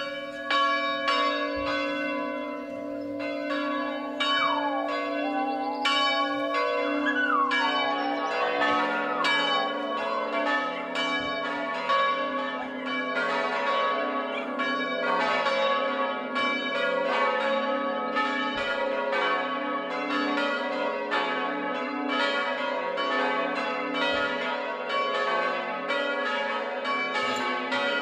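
Full peal of five electrified swinging church bells tuned to an F-sharp major scale, all ringing together. Strikes begin at once and thicken over the first several seconds as more bells swing up, then run on as a dense, overlapping peal. The peal is the first call to Sunday mass.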